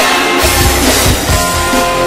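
Rock wrestling entrance theme with a drum beat and guitar.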